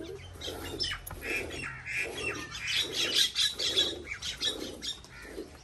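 A cow being milked by hand: streams of milk squirt into a steel pail already part full of milk, in an even rhythm of about two strokes a second.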